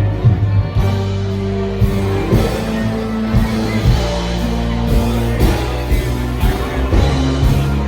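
Live amplified blues band playing: held bass and guitar notes over a regular drum beat.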